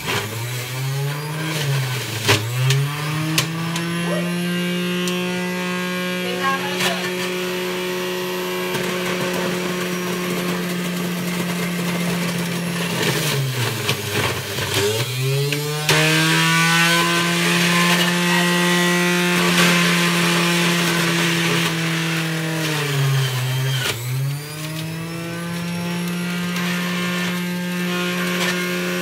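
Electric centrifugal juicer motor running at a steady high speed. Its pitch sags and recovers three times, about two seconds in, around the middle and near the end, as the motor slows under the load of produce being fed through.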